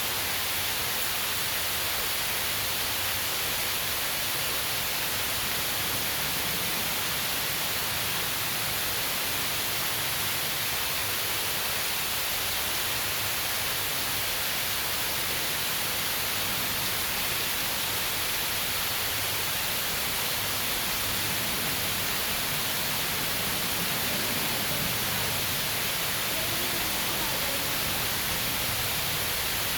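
Steady heavy rain, a dense even hiss with no let-up.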